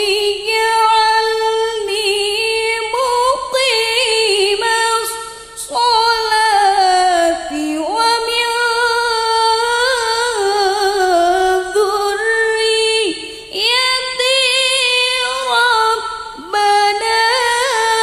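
A woman reciting the Quran in the melodic tilawah style into a microphone: long held notes with wavering, ornamented pitch, broken by a few short pauses.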